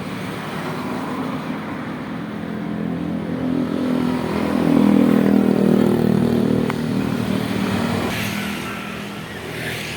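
A motor vehicle passing on a road, its engine growing louder to a peak about halfway through and then fading away.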